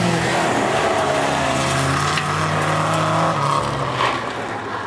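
Volvo 240-series rally car's engine held at high revs as the car slides through a gravel corner and pulls away, its pitch dropping about three and a half seconds in.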